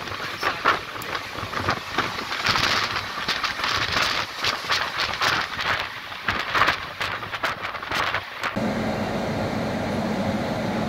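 Passenger train running at speed, with rushing noise and irregular rattling clatter. About eight seconds in it cuts suddenly to a steady, even hum.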